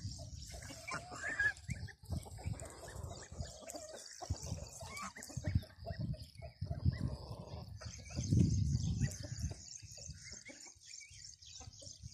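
Goslings peeping in short, scattered calls among grazing domestic geese, over a steady high chirring in the background and irregular low thumps and rumbles.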